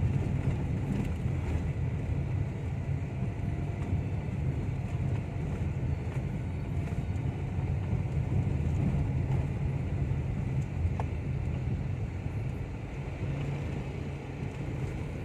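Toyota Wigo hatchback driving, heard from inside the cabin: a steady low road-and-engine rumble with no dashboard rattle, now that the loose dashboard part has been wedged tight.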